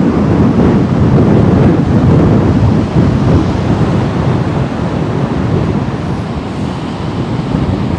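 Wind buffeting the microphone over the wash of waves breaking on a sandy shore.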